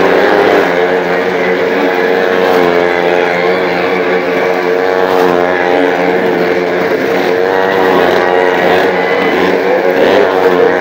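Engines of the well-of-death stunt vehicles running loudly and steadily, their pitch drifting slightly up and down with light revving.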